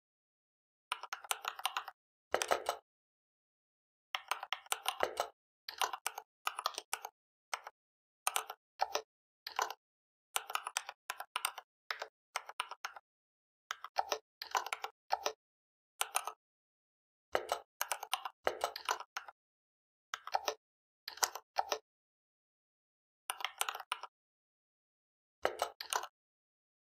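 Typing on a computer keyboard: quick runs of keystrokes in bursts of a second or two, with complete silence between the bursts.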